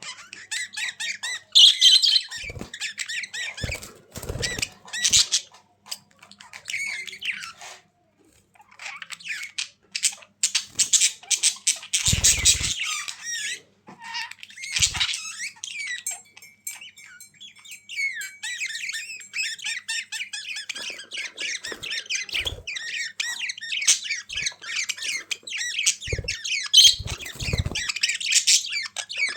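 Budgerigars chattering and warbling: fast, scratchy runs of chirps, clicks and squawks, broken by a couple of brief pauses, with a few short low thumps mixed in.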